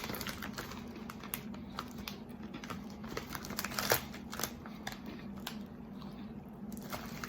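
Crinkling and crunching from eating Flamin' Hot Cheetos: the snack bag rustling and the crunchy cheese snacks being chewed, a rapid run of small crackles with one louder crunch about four seconds in.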